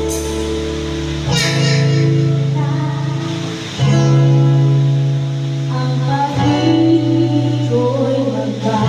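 A woman singing into a microphone over a guitar accompaniment, the chords changing about every two and a half seconds.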